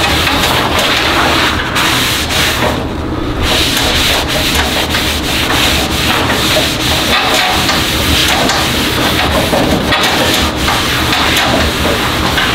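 Paper towel rubbing back and forth across the steel cooktop of a Blackstone flat-top griddle as it is wiped down, a continuous scratchy friction with a brief lull about three seconds in.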